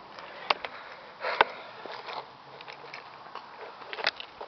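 Handling noise from a handheld camera and footsteps on a driveway: scattered clicks and knocks, with a louder rustling burst about a second and a half in and another cluster of clicks near the end.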